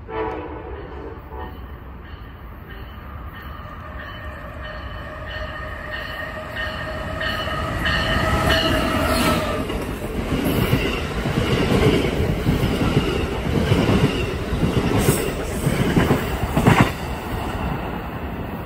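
Amtrak passenger train passing close alongside the platform. A steady whine of several tones rises over a growing rumble as it comes in, then the wheels clack over the rail joints as the coaches go by, loudest near the end.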